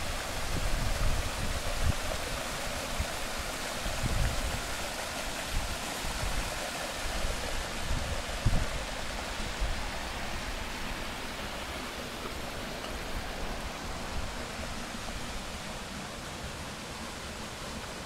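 Steady rush of flowing mountain water, with irregular low thumps in the first half that die away toward the end.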